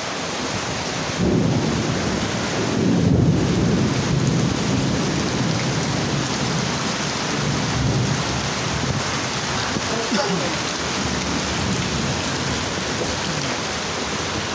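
Heavy rain pouring down steadily. A low rumble of thunder swells about a second in and fades over the next few seconds.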